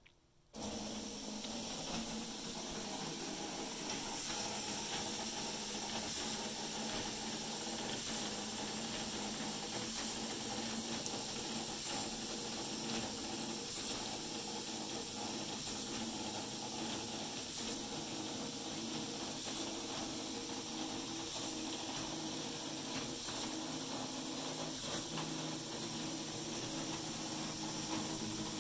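Automated microgreen seeding machine running after the SEED button is pressed, its gantry seed dispenser at work. A steady hiss with a low machine hum starts suddenly about half a second in and holds steady.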